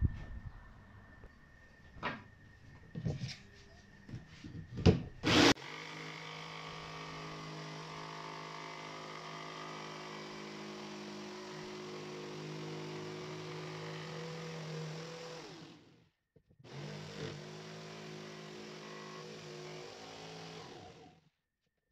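A few knocks, then a corded jigsaw starts about five seconds in and runs steadily, cutting through an MDF board after being set into a drilled starter hole. It stops briefly about ten seconds later, starts again and cuts off just before the end.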